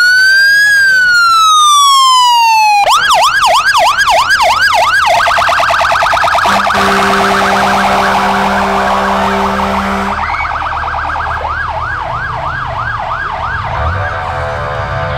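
Emergency vehicle siren going through its modes: a slow wail that rises and falls, then a fast yelp, then a faster warble, then the yelp again, and at the very end a new wail starting to rise. A steady low horn tone sounds over the siren for a few seconds in the middle.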